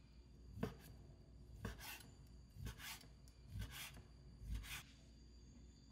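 Chef's knife slicing raw chicken breast into strips on a wooden cutting board. Five strokes come about a second apart, each a rasping draw of the blade ending in a knock on the board.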